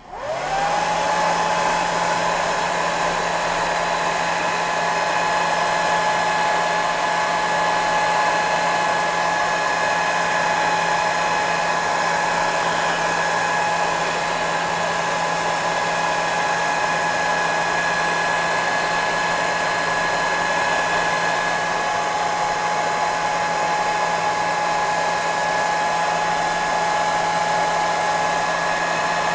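Heat gun switched on, its fan motor whining up to speed within about half a second, then running steadily with a rush of blowing air and a steady high whine.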